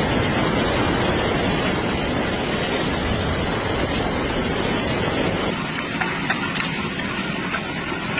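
Loud, steady rush of torrential rain and flooding water. About five and a half seconds in it cuts abruptly to a duller, quieter rush with a few faint clicks.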